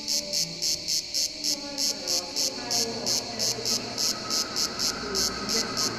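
Ambient soundscape: a steady pulse of high, cricket-like chirps, about three a second, over soft low tones that slide in pitch. A rougher, noisier layer builds in underneath from about two seconds in.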